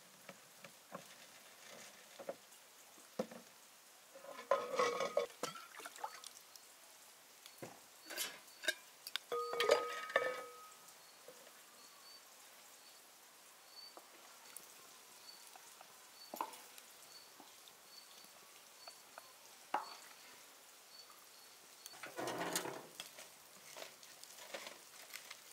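A spoon stirring and knocking in a cooking pot: scattered small clicks, with louder bouts of clinking and scraping about 4 s in, around 8 to 10 s, and again near the end. A faint, evenly repeated high chirp runs through the middle stretch.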